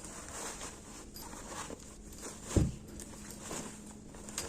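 Rustling and handling of a crochet bag and its cotton lining fabric as it is turned inside out, with one dull thump a little past halfway.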